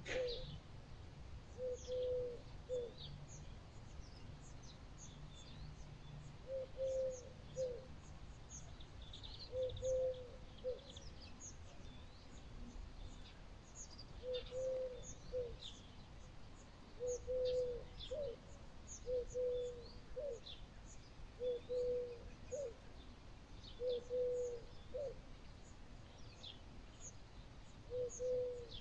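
A dove cooing, low phrases of two or three notes repeated every two to three seconds, over many small birds chirping high and fast.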